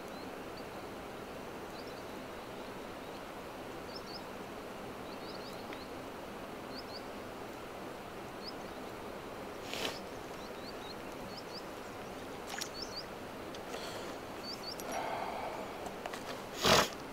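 Steady outdoor background rush with a small bird's short, high chirps repeating every second or so. Two brief noise bursts cut in, one about ten seconds in and a louder one near the end.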